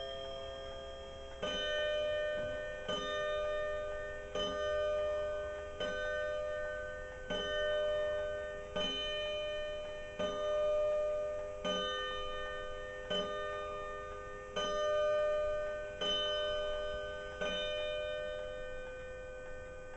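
Kieninger triple-chime wall clock striking twelve o'clock: twelve slow, evenly spaced ringing strokes about a second and a half apart, each one left ringing into the next.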